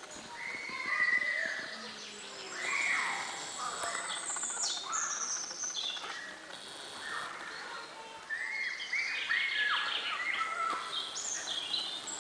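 Several songbirds singing, a busy mix of short chirps and warbled phrases that overlap.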